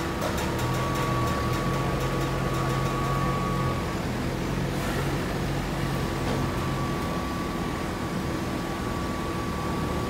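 Hydraulic baler running: the steady hum and whine of its hydraulic pump and motor. A deeper tone drops away about seven seconds in, and there are a few light clicks in the first two seconds.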